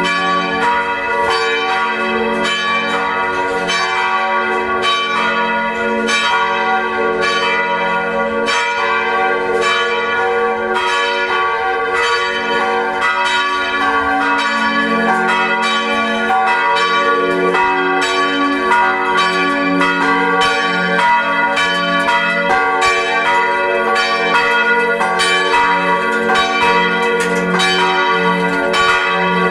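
The Felsenkirche's church bells ringing together in a loud, continuous peal, strokes of several bells overlapping with no break.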